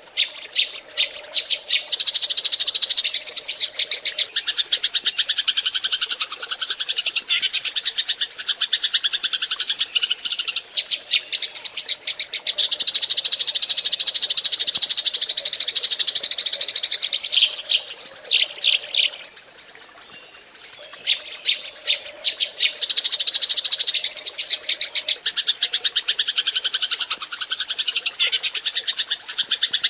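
A flock of Eurasian tree sparrows chirping in a dense, rapid, continuous chatter, with a brief lull about two-thirds of the way through.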